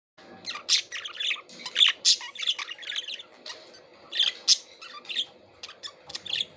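Pet budgerigars chattering: a rapid, irregular run of short chirps and squawks.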